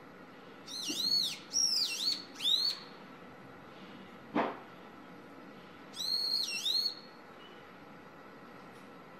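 Brown-eared bulbul, a young bird, singing: a run of three or four high notes that dip and rise, then a pair of the same notes a few seconds later. A steady faint hum runs underneath, and there is one short knock between the two phrases.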